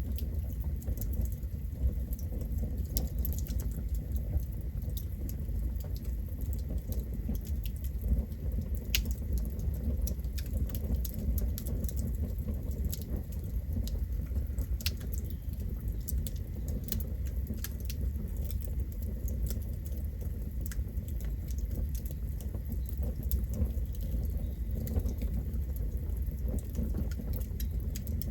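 Campfire burning: a steady low rumble with frequent irregular sharp crackles and pops from the burning wood.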